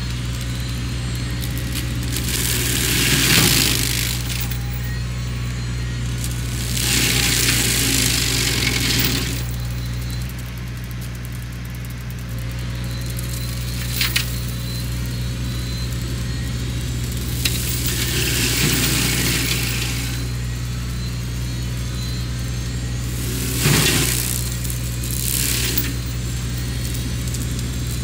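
Sany SY50U mini excavator's diesel engine running steadily under load while its Mongo flail mulcher head works through brush. Louder noisy surges of a second or two come about five times, and there are a few sharp knocks.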